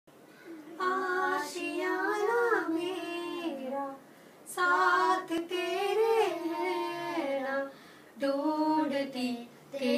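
A woman and a boy singing a Hindi song together without accompaniment, in three drawn-out phrases with short pauses between them.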